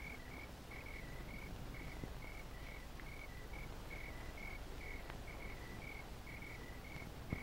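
Crickets chirping in a steady run, about three short chirps a second, over the low hiss and hum of an old film soundtrack. A single sharp click comes near the end.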